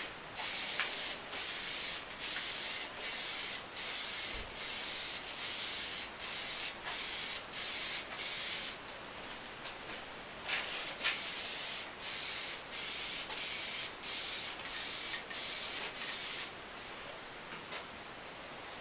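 Aerosol can of Plasti Dip spraying in repeated short hissing bursts, a little more than one a second, in two runs with a pause of about two seconds around the middle. The spraying stops a couple of seconds before the end.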